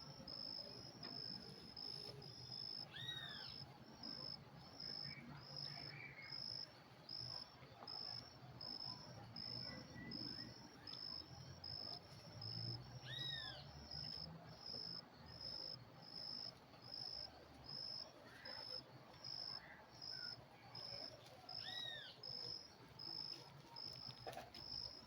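Insect chirping steadily, a high-pitched chirp repeated about one and a half times a second. A short arched call, rising and falling, cuts in three times.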